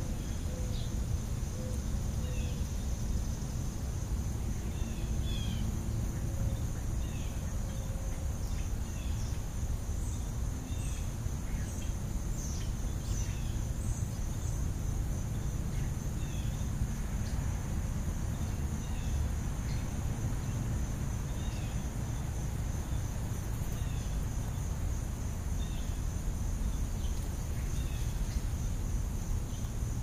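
House sparrows giving short, scattered chirps while feeding, over a steady high-pitched insect drone and a low rumble.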